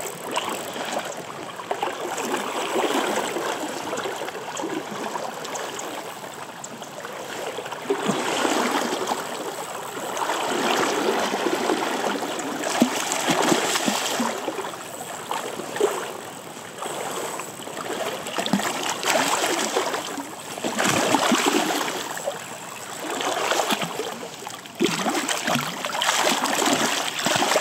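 Fast, shallow river water rushing close by, with splashing from a hooked coho salmon thrashing in the shallows as it is brought to the bank. The sound comes and goes in louder surges.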